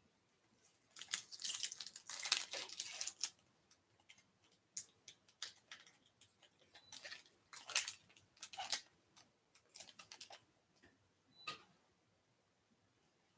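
Foil wrapper of a Topps baseball card pack crinkling and tearing as it is opened by hand, in irregular bursts of rustling, the longest about a second in.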